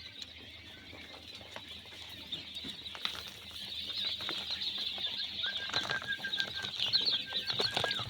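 A flock of quails chirping together in their pen: many overlapping high peeps, with scattered clicks and scuffles, growing louder about halfway through.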